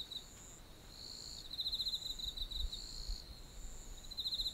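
Night insects calling faintly: high pulsing trills lasting about a second each, repeating every couple of seconds over a thin steady high tone.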